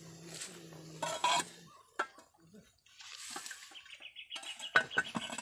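A metal lid clattering and clanking onto a black cooking pot, with a few knocks about a second in and the loudest clanks near the end as the lid is set down. Quick, evenly spaced bird chirps run through the background from a little past four seconds in.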